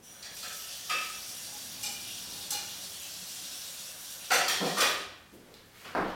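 Kitchen sounds from work at a counter: a steady hiss with a few light clinks of dishware, then louder rough scraping noises a little past four seconds in and again near the end.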